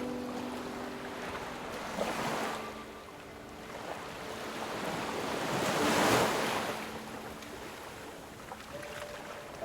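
Ocean waves washing on a shore, swelling and breaking in slow surges, the loudest about six seconds in. Soft sustained music notes sound faintly beneath.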